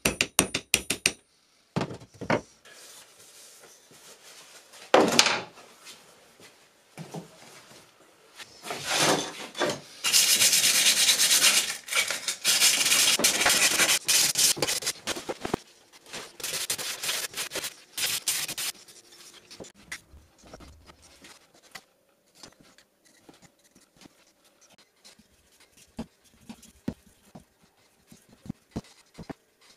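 A quick run of hammer blows seating a steel hammer head on its wooden handle, then the steel head rubbed back and forth by hand on sandpaper: a dense scraping that comes and goes and is loudest for several seconds past the middle. Near the end it drops to faint scattered ticks.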